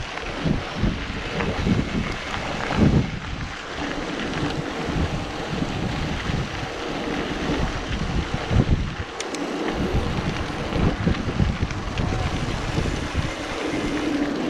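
Wind buffeting the microphone of a handlebar-mounted camera on a mountain bike while riding, mixed with tyre noise on the road surface and occasional knocks and rattles from the bike going over bumps.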